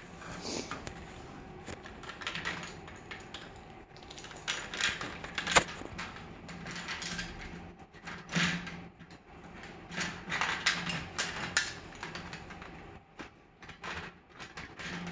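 Plastic LEGO bricks clicking and rattling as a cockatoo pries them off a LEGO ship model with its beak, in irregular bursts, with one sharp click about five and a half seconds in.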